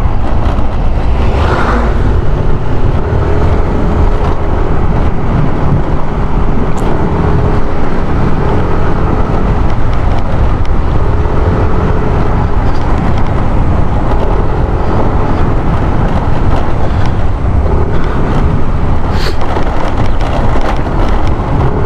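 Steady wind rush on the rider's microphone while riding a Yamaha NMAX 155 scooter, with the scooter's engine running faintly beneath it.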